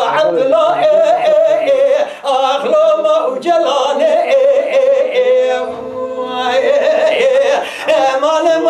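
Unaccompanied dengbêj singing: a man's solo voice in a Kurdish sung narrative, with wavering, ornamented lines and a long held note with vibrato about halfway through.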